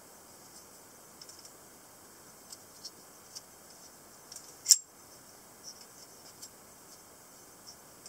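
Small clicks and ticks from a bat-shaped, two-blade semiautomatic folding knife being handled, then one loud, sharp metallic snap about four and a half seconds in as a blade springs open and locks.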